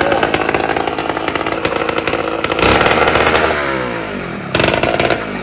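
Small two-stroke engine of a motorized bicycle running on its first start, fuelled with straight gasoline and no oil. The revs fall away about three and a half seconds in, then a short burst of throttle comes near the end.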